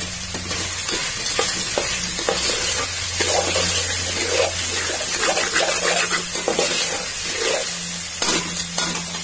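Metal spoon stirring and scraping green peas and chopped tomatoes frying in oil in a metal pot, over a steady sizzle, with repeated irregular scrapes against the pot.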